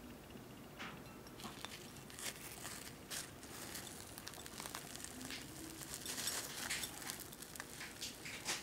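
A sugar-coated chocolate custard cream doughnut being handled and pulled apart by hand: faint, scattered crackling of the sugar coating and tearing dough.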